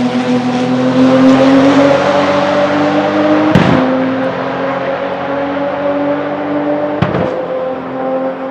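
Porsche 997 GT2 RSR's 3.9-litre twin-turbo flat-six pulling hard, its pitch climbing steadily. Two sequential-gearbox upshifts come about three and a half and seven seconds in, each a brief crack followed by a drop in pitch before it climbs again.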